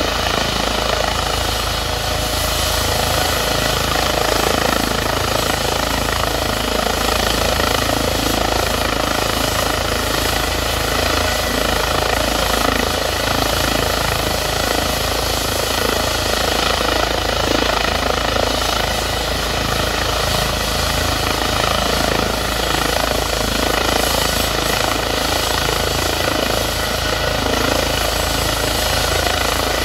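Rescue helicopter running on the ground ahead of takeoff: a steady turbine whine over the even rush of the rotor, with no change in pitch or level.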